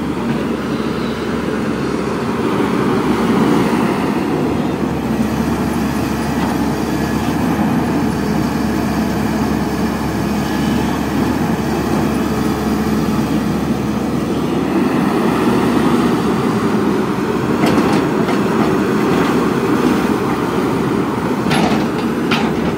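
Caterpillar 320D hydraulic excavator working at close range: its six-cylinder diesel engine runs steadily under load. A few sharp metallic knocks come near the end.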